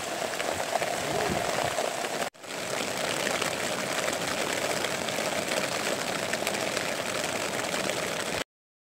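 Steady rain falling, an even hiss with a brief dropout about two seconds in, stopping abruptly near the end.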